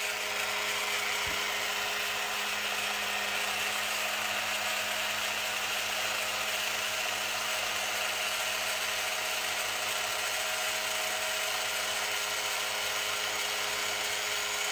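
Small battery-powered motor of a flapper paddle boat running fast and steadily, spinning its magnet drive so the plastic tail vibrates with an even mechanical buzz. The boat is vibrating, but not enough to drive it along well.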